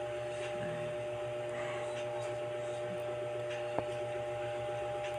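Steady background hum of an indoor room, with a few constant droning tones, and a single short click a little under four seconds in.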